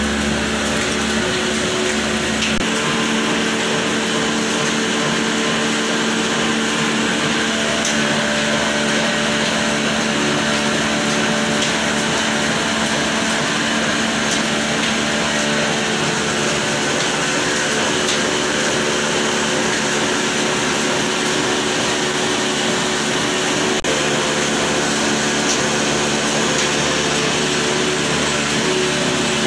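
Belt-driven Chinese atta chakki flour mill running steadily with a high whirring hum, driven by flat belt and line shaft from an old diesel engine that is heard in the mix. A deep low rumble drops away about two and a half seconds in.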